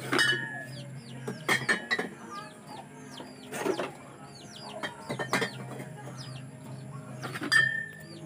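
Empty glass beer bottles clinking as they are lifted from a bucket and set into plastic crates, a handful of sharp clinks with the loudest near the end. Chickens cluck and cheep in the background throughout.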